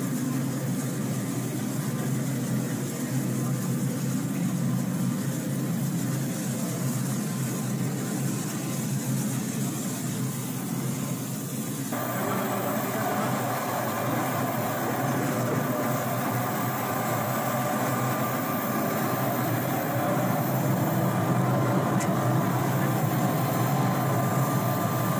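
Steady engine drone with no clear breaks. About twelve seconds in it turns brighter, with a steady higher whine over it.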